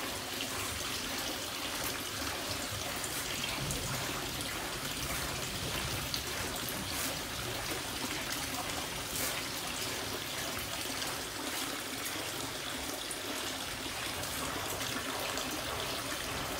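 Steady splashing and trickling water in a canvas catfish tank, from keli catfish churning at the surface as they feed and light rain falling on the water.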